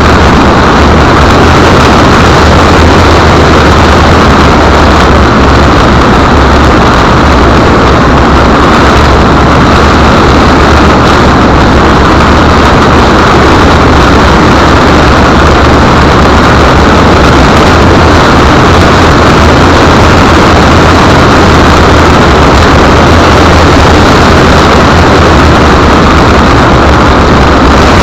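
ST Discovery RC model plane in flight, heard from a keyring camera fixed under the fuselage: a loud, steady rush of motor, propeller and wind noise with a low hum underneath, overloading the small microphone.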